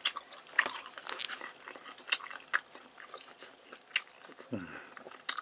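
A person chewing a mouthful of chewy teriyaki-grilled squid leg, with irregular mouth clicks throughout. A brief low hum comes about four and a half seconds in.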